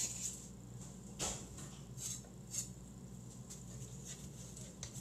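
A few faint clinks and scrapes of a chef's knife against a frying pan and wooden cutting board as chopped onion is knocked off the blade, over a low steady hum.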